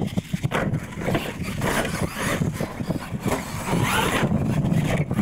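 Radio-control monster truck running on a dirt course: its motor whines up in pitch under throttle about two seconds in and again near four seconds, over tyre and chassis noise with short knocks as it lands and climbs over ramps.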